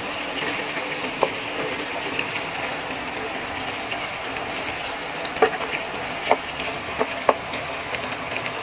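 Cubed pork, potatoes, carrots and sliced hot dogs sizzling in a frying pan as they are stirred with a wooden spatula. Several sharp knocks of the spatula against the pan, one about a second in and a few more in the second half.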